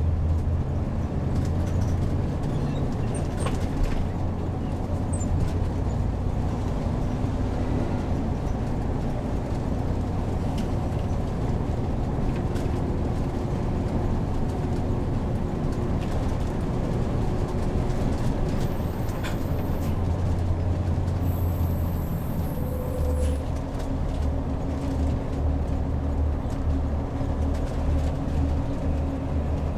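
Heavy motorhome on the move: a steady low engine drone with road noise.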